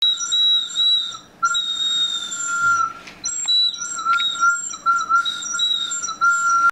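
Terracotta bird whistle blown in a shrill, steady note, broken by short pauses into about three long blows, with small dips in pitch here and there.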